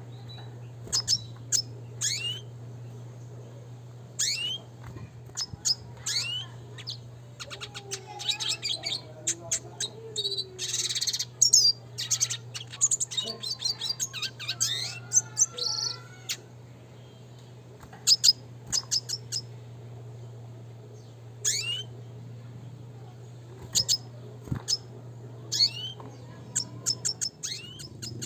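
Red siskin singing: bursts of short high chirps and twittering trills, broken by pauses, with a denser run of song about a third of the way through. A steady low hum runs underneath and stops near the end.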